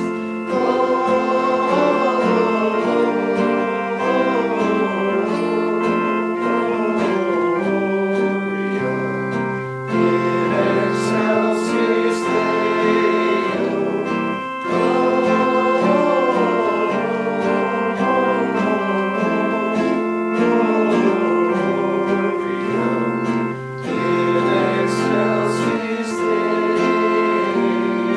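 Singing with organ accompaniment: long held organ chords under a sung melody, with brief breaks between phrases.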